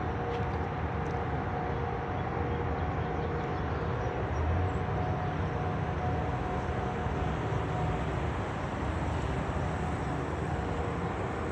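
Continuous low mechanical drone from hospital machinery, with a steady rumble and a couple of held tones above it, running without a break. The recorder blames it on motor equipment at the hospital, since there is no traffic or construction around.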